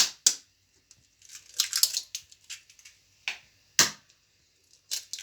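Eggs being cracked against the edge of a bowl and their shells broken apart: several sharp knocks with short crackling in between.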